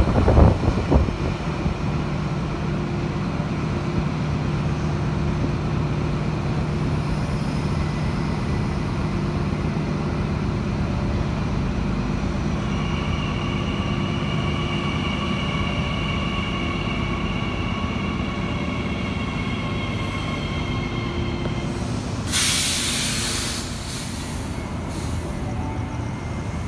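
New Intercity Fleet double-deck electric train running slowly past along a platform, with a steady rumble. A high steady whine joins in about halfway through, and a sharp hiss of air comes a few seconds before the end, followed by shorter hisses.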